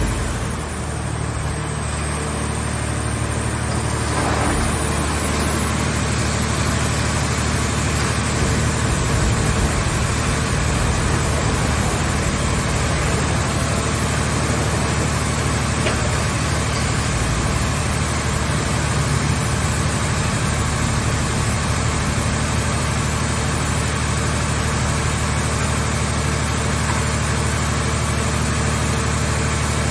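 Car-shell baler's hydraulic power unit running steadily, a low even drone with no clear knocks or crunches.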